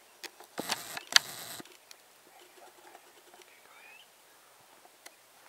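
Close rustling with several sharp clicks for about a second, like the camera or clothing being handled, then a short rising chirp about four seconds in.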